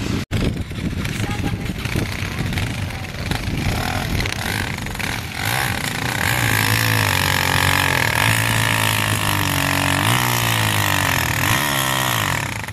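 Dirt bike engines running, then from about five seconds in one dirt bike close by, revving up and down again and again as its rear wheel spins and digs in the sand.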